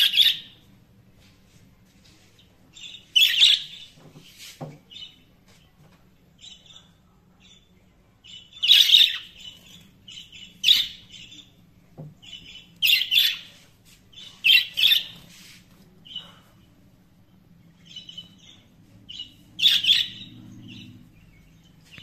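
Pet budgerigars chirping and twittering in short, high bursts, with a handful of loud calls scattered among quieter chatter.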